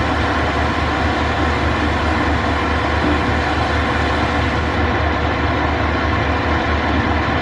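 Heavy engine of tree-removal equipment running steadily, with a rapid low throb under a wide, even machine noise.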